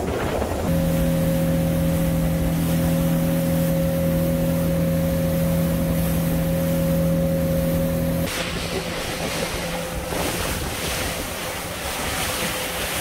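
Yamaha SX190 jet boat running at a steady speed: an even engine hum over the rush of wind and water. About eight seconds in, the engine tone drops away and wind and splashing water take over.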